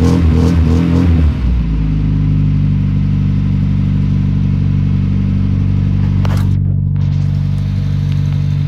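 Electronic dance music for the first second and a half, then a square-body Volkswagen Gol's engine running steadily at an even speed with a low exhaust rumble. A brief click about six seconds in.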